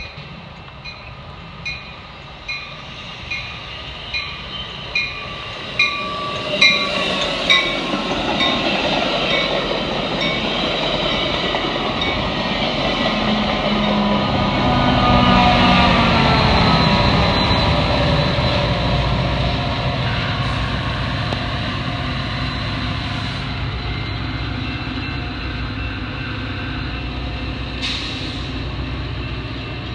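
Metra commuter train with an F40PH diesel locomotive approaching and passing. A bell dings about once a second for the first seven seconds or so, louder each time. Then the rumble of the engine and the wheels on the rails builds, is loudest a little past the middle, and carries on steadily as the bilevel cars roll by.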